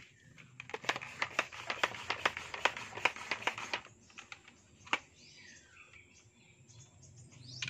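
Rapid, irregular clicking and rattling for about three seconds, then a single click: a homemade PVC toy gun being handled right after a shot.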